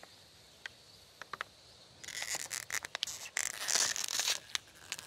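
Scattered small clicks, then a couple of seconds of rustling and crunching with many small clicks in it.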